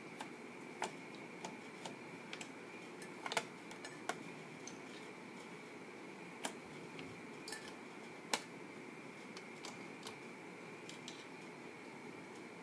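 Typewriter keys struck one at a time: scattered, irregular clacks, about one or two a second, with a couple of louder strikes.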